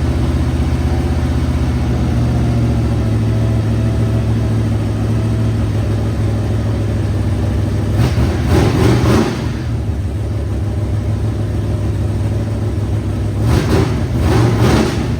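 Car engine, newly installed in a Holden Commodore, idling steadily and revved briefly twice: once about eight seconds in and again near the end.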